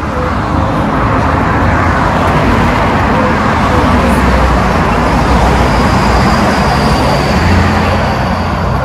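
Steady, loud road-traffic noise: vehicles running along a busy street, with a deep low rumble.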